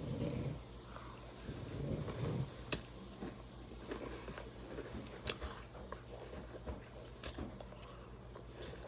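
A person chewing and crunching dry cereal close to the microphone, in irregular bursts with a few sharp clicks.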